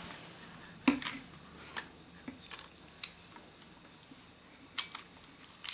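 Minolta XD7 35mm film SLR being worked by hand: a series of sharp mechanical clicks, several in close pairs, the loudest about a second in, typical of the shutter firing and the controls being clicked.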